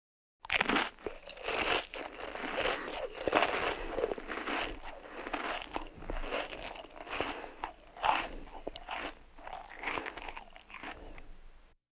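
A person chewing food, an uneven run of noisy bites and chews about once a second, starting about half a second in and stopping near the end.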